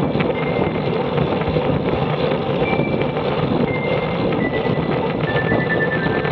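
Steady road-riding noise on a bike-mounted camera: wind rushing over the microphone and tyre hum on asphalt at about 30 km/h. Faint high tones come and go over it.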